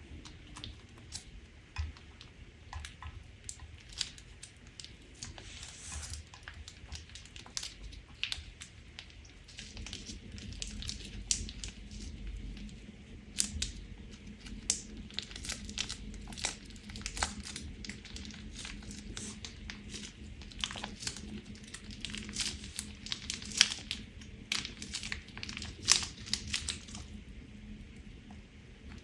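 Crunchy clear slime being squeezed and pressed by hand, giving many small crackles and pops. The crackling is sparse at first, thickens about a third of the way in, and dies away shortly before the end.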